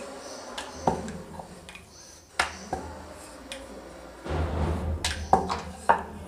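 Puri dough being rolled out with a wooden rolling pin on a wooden board: scattered sharp taps and knocks of the pin and hands on the board. A low rumble joins about four seconds in.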